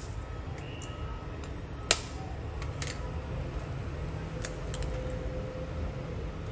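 An egg struck once, sharply, against the rim of a glass bowl to crack it, followed by a few lighter clicks of shell being handled. A steady low hum runs underneath.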